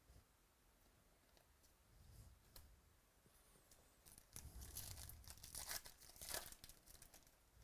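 Faint tearing and crinkling of a baseball card pack wrapper being torn open by hand. The crackling is heaviest from about four seconds in until shortly before the end.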